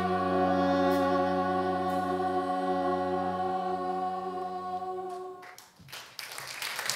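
Live ensemble holds a sustained final chord, which fades out about five and a half seconds in; clapping starts up just after.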